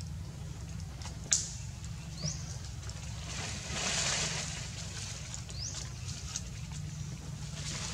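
Outdoor background noise: a steady low hum with a single click about a second in, a few short rising high chirps, and a brief hissing swell in the middle.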